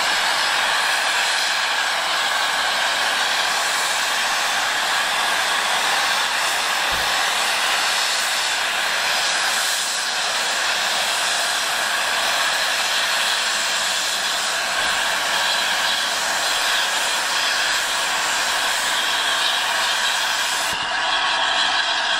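Steam hissing steadily from the standing LNER A3 Pacific steam locomotive 60103 Flying Scotsman, a continuous even hiss with no exhaust beat.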